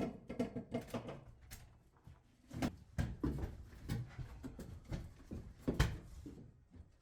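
Irregular knocks, clicks and clunks of hands handling tools and materials at work, with a few louder thumps near the middle and shortly before the end.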